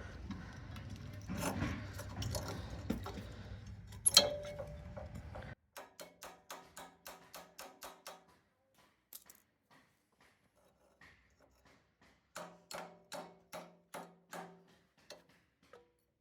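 Ratchet wrench clicking in quick even runs, about four clicks a second, as bolts on the Honda F501 tiller's tine assembly are worked. There are two runs of clicks, after a stretch of steady background noise with one sharp knock.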